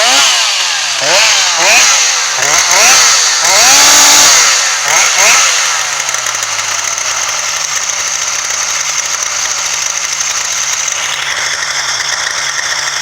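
Freshly restored Solo Twin chainsaw engine, freshly started after restoration, revved up and down in quick blips for about six seconds, held high once around four seconds in, then settling into a steady idle.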